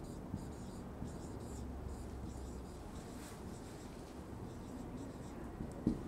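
Marker pen writing on a whiteboard: faint scratching strokes as a word is written out, with a light click near the end.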